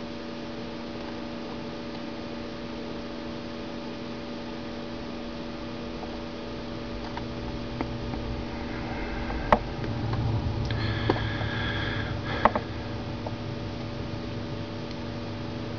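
Steady electrical mains hum with faint hiss from the recording setup, a few short clicks about nine and twelve seconds in.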